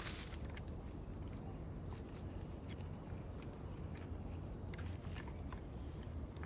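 Scattered crackles and snaps of twigs and leaf litter, as of footsteps through brush, over a steady low rumble.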